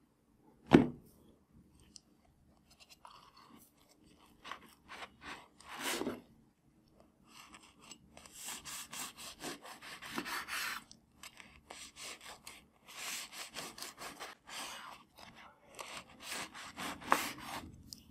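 A sharp knock on a wooden cutting board about a second in, then a knife sawing through a crusty French bread loaf on the bamboo board: quick back-and-forth rasping strokes with crackling crust, in several runs.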